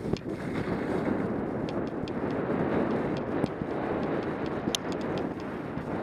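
Wind rushing over an action camera's microphone and skis sliding over the snow on a fast downhill run in a tuck: a steady, noisy rush with a few faint clicks.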